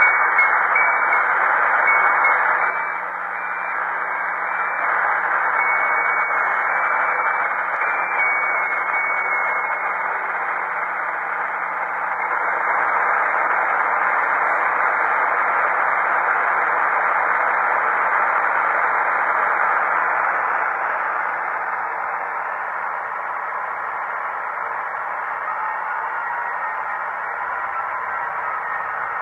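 Steady hiss of band noise from a Kenwood R-1000 shortwave receiver's speaker, tuned to 7.077 MHz in the 40-metre amateur band. A faint high steady tone sits on top for the first nine seconds or so, and a low hum runs underneath.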